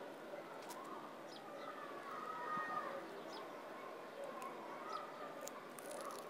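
Tortoise biting and crunching into a juicy vegetable slice, with a few small crisp snaps as it bites. Birds call in the background, loudest a couple of seconds in.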